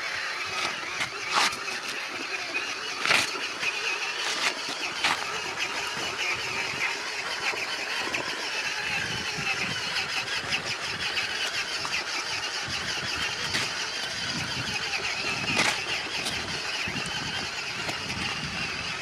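Radio-controlled model truck running with a steady mechanical whir, broken by a few sharp knocks.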